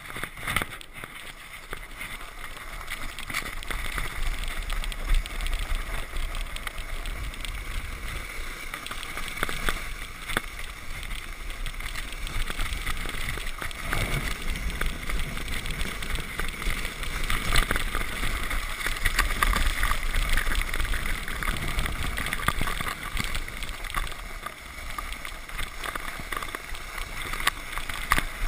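A sled sliding fast over packed snow: a continuous rushing scrape of the sled on the snow with frequent small knocks from bumps, plus wind on the microphone, building up over the first few seconds.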